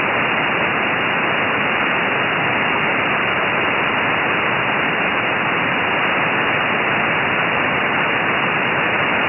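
Steady hiss of SSB receiver noise from the QO-100 satellite's narrowband transponder with no station transmitting, cut off sharply above a narrow voice band.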